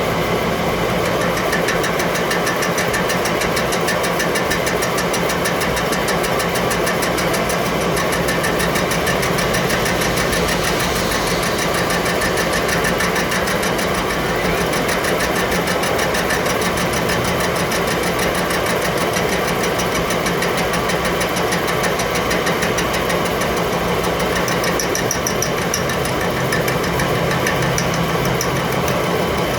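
An engine or similar machine running steadily, with a fast, even ticking in its noise.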